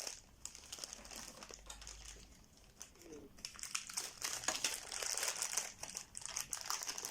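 Packaging crinkling and rustling as parts are handled and unwrapped. It is quieter for the first few seconds and gets louder from about four seconds in.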